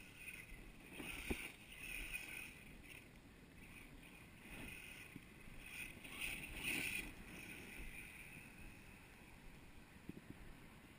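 The brushless electric motor of a Maverick Strada XT Evo S RC truck, a Turnigy Trackstar 3520KV, whirring faintly. It swells and fades in several throttle bursts as the truck drives over loose dirt.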